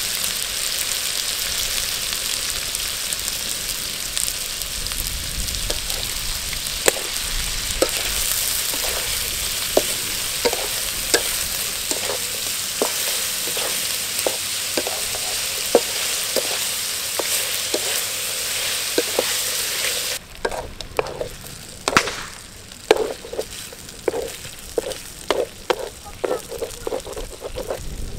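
Chopped frog meat sizzling in hot oil in a steel wok, with a spatula scraping and knocking against the pan as it is stirred. The sizzle is loud and steady, then drops suddenly to a quieter level about twenty seconds in, where the spatula strokes come about twice a second.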